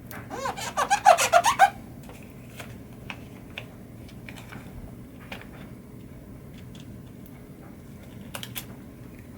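A quick run of squeaks, about a second and a half long near the start, as from something rubbed hard over a smooth, glossy surface. It is followed by a few faint light clicks and taps.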